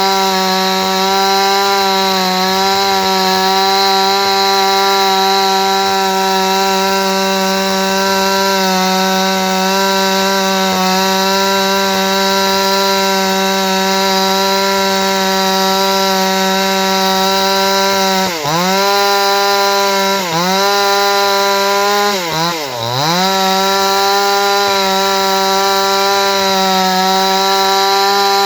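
Chainsaw running at high, steady revs while cutting wood. Three times in the last third its pitch dips sharply and recovers, as the chain bogs under load in the cut.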